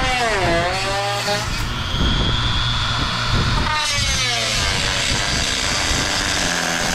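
Small high-speed rotary tool with a cut-off wheel cutting a slot in a plastic bumper trim piece. Its motor whine dips and climbs in pitch several times as it cuts.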